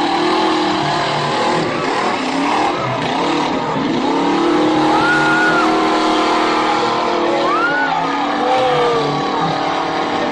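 Monster truck engine running hard, its pitch climbing about four seconds in, over crowd noise with a couple of short high cries.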